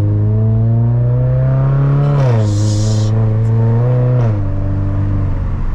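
2022 GR86/BRZ 2.4-litre flat-four running through a Borla exhaust with a front muffler, heard from the cabin with the windows down while accelerating through the gears. The engine note climbs, falls at an upshift about two seconds in, then climbs again and falls at a second upshift about four seconds in.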